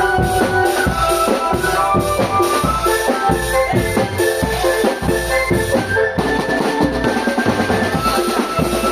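A marching drumband playing: bass and snare drums beating a steady rhythm under a melody of pitched notes.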